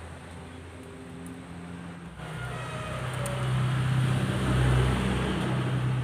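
A motor vehicle's engine passing close by, a steady low hum and road noise swelling to a peak about four to five seconds in and then easing off.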